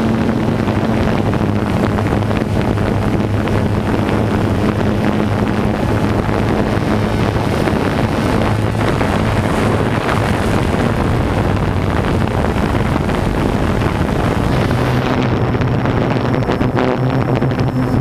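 Multirotor drone's propellers and motors humming steadily as heard from its own onboard camera, with wind rush on the microphone. Near the end the hum steps a little higher as the drone turns and flies off.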